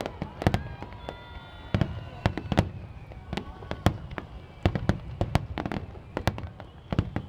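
Aerial fireworks going off in quick succession: many sharp bangs and crackles, with thin high whistling tones that slide slowly downward.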